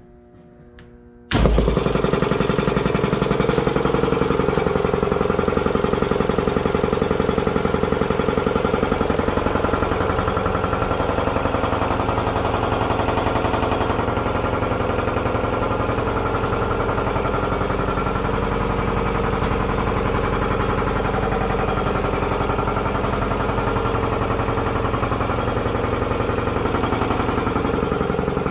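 Ship's 600 PSI air compressor kicking on abruptly about a second in and running loud and steady with a fast pulsing beat, charging the starting air for the diesel generator.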